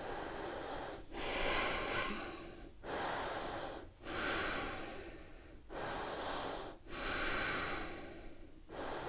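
A woman breathing deeply and audibly while holding a standing yoga pose: seven slow, hissy breaths in a steady in-and-out rhythm, each separated by a brief pause, longer breaths alternating with shorter ones.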